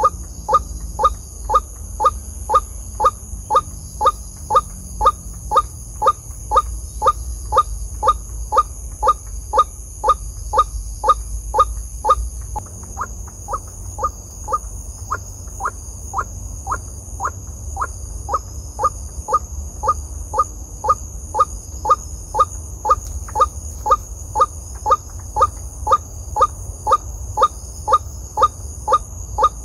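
White-breasted waterhen 'wak-wak' call, one short note repeated steadily about twice a second, very evenly spaced.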